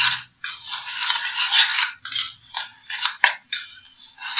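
Wire whisk stirring and scraping through crumbly semolina moistened with curd in a bowl: several long gritty swishes, with a sharp tap against the bowl about three seconds in.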